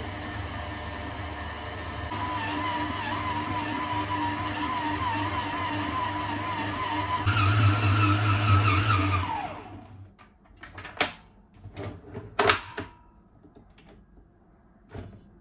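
Electric mixer motor running steadily with a low hum and a wavering whine. About seven seconds in it steps up to a higher, louder speed, and a couple of seconds later it is switched off and winds down with a falling pitch. A few sharp knocks and clatters follow.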